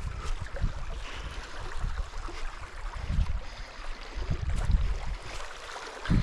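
Wind buffeting the camera microphone in uneven gusts, over the steady rush of a small stream.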